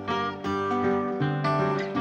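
Background music led by strummed and plucked acoustic guitar, with a new note or chord every fraction of a second.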